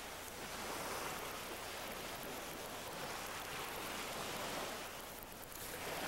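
Steady wash of small lake waves.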